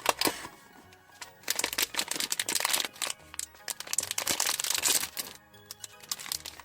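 Plastic blind-box packaging crinkling as it is handled and torn open, starting about a second and a half in with a short pause near the end, over soft background music.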